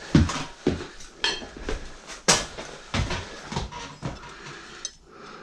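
Metal hardware clattering and knocking irregularly as it is rummaged through by hand.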